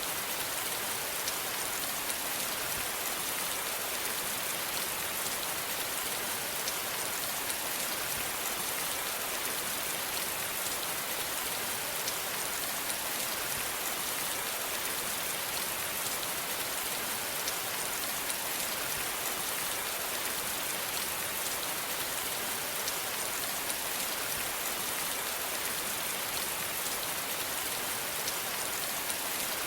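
Steady rain falling on a surface, an even hiss of many small drops with faint patter, unchanging throughout.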